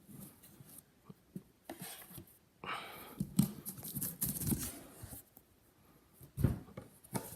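Trading-card packaging and cardboard being handled: irregular rustling with scattered light clicks and knocks, busiest from about two to five seconds in, with a sharper knock near the end.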